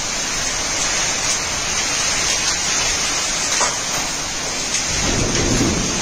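Heavy rain mixed with hail pelting paving and plants: a steady loud hiss with a few faint sharper ticks. A low rumble comes in about five seconds in.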